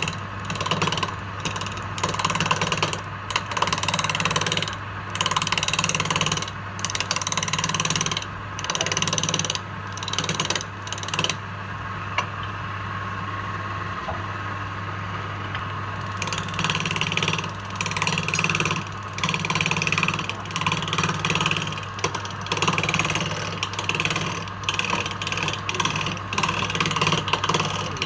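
Wood lathe motor running with a steady hum while a tool is worked against the spinning wood in repeated rasping strokes, about one a second. The strokes stop for about four seconds near the middle, leaving only the motor hum.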